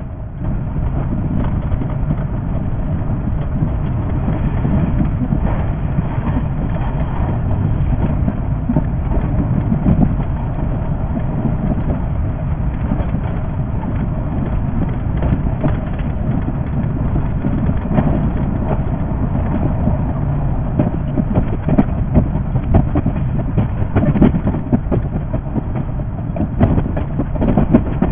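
Running sound of a JR 381 series limited express electric train, heard from the cab and played at six times normal speed: a steady rumble with a dense, quick clatter of wheel clicks over the rail joints.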